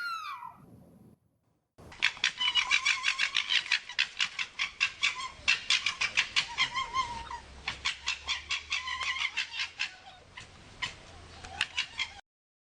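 Red fox giving a long run of rapid, stuttering chattering calls, about five or six a second, which stops abruptly near the end. In the first second, the tail of a single falling cry fades out, then there is a short gap before the chatter begins.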